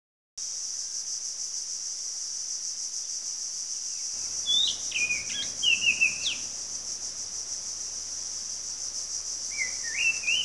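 A steady, high insect drone with a fine pulsing texture, starting abruptly. A bird calls over it in two short runs of whistled notes that step up and down in pitch, one in the middle and one near the end.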